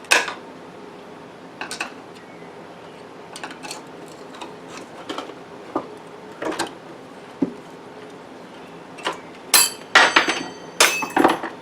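Snap-ring pliers clicking and scraping against a steel retaining ring inside a Borg-Warner 1356 transfer case, with scattered light metal ticks. Near the end the snap ring springs free and clatters, several sharp metallic strikes that ring.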